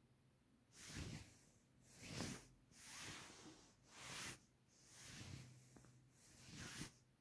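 Faint, regular puffs of breath close to the microphone, soft swells of air noise about once a second, over a faint steady low hum.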